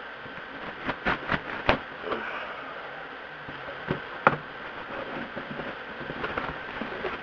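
A cardboard shipping box being handled and opened: a quick cluster of sharp clicks and taps about a second in, another sharp knock a little after four seconds, with light rustling in between.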